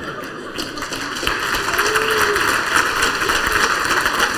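Audience reacting: a steady wash of crowd noise that builds about a second in and holds.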